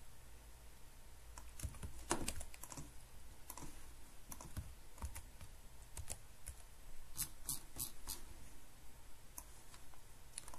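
Scattered keystrokes and clicks on a computer keyboard, single presses at first and a quick run of several about seven to eight seconds in.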